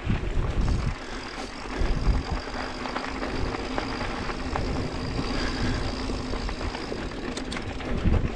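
Mountain bike ridden along a dirt trail: tyre noise and small rattles over the ground, with gusts of wind on the microphone near the start, about two seconds in and near the end. A faint steady whine runs through the middle.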